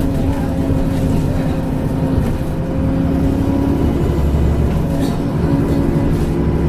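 Transbus Trident double-decker bus engine running steadily under way, with a thin steady whistle from its turbocharger above the engine drone.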